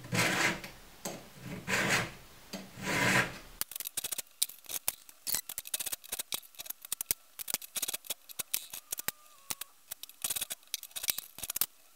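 Hand file rasping across a chainsaw chain's cutter tooth in three long, even strokes, then a run of quick, irregular metallic clicks as the chain and file are handled.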